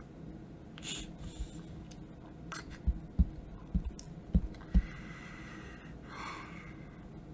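About five short, low, dull thumps a few seconds in, like handling bumps near the microphone, with a soft breath before and after.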